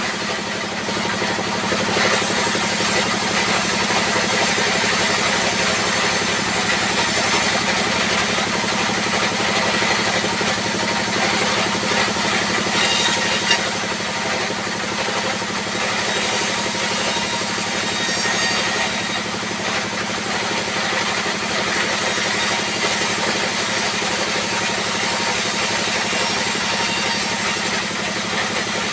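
Vertical band saw cutting rough timber slabs over a steady engine running underneath. A high hiss from the blade rises each time a slab is fed through, in several passes of a few seconds each.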